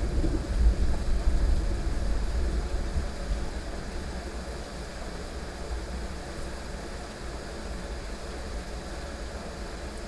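Heavy rain falling steadily, with a low rumble of rolling thunder that is loudest in the first few seconds and then dies away.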